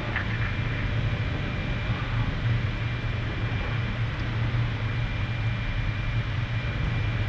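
Steady low rumble and hum of a submersible's interior machinery, with a faint thin high whine running over it.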